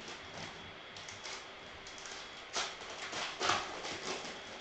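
Foil trading-card pack wrappers crinkling and rustling in the hands, with two louder crackles about two and a half and three and a half seconds in.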